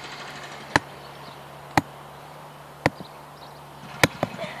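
Club hammer striking the top of a square wooden peg, driving it into lawn turf: four sharp blows about a second apart.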